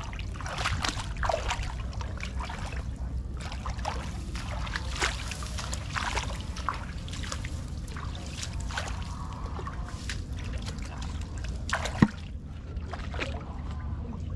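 Water splashing and trickling in irregular bursts, over a steady low rumble, with one sharp knock near the end.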